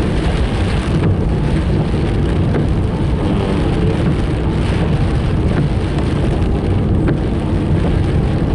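Steady road and engine noise inside a moving car, with heavy rain falling on the car.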